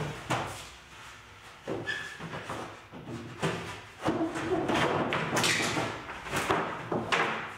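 Plywood sheet knocking and scraping against a 2x4 wooden workbench frame as it is tilted and worked into place as the bottom shelf: a string of wooden thumps, with rubbing and scraping between them in the second half.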